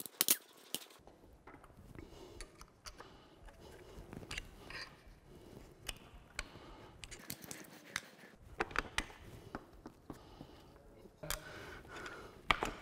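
Scattered metallic clicks and clinks of hand tools and small steel fittings being worked off the axle of an e-scooter's rear hub motor, including nuts and washers and a screwdriver at the hub. The loudest clicks come just after the start and again near the end.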